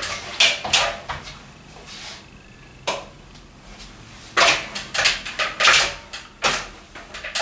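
Short knocks and scuffs of someone moving about and handling things in a small room. A single sharp click comes about three seconds in, as the ceiling light is switched off.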